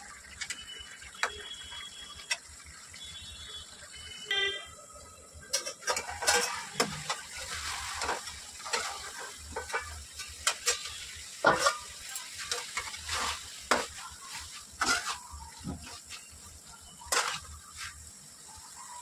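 Flat steel spatula stirring and scraping potato and carrot curry around a kadhai: irregular metal-on-pan scrapes and knocks, sparse at first and coming thick and loud from about six seconds in, over a steady sizzle of the vegetables frying in the masala.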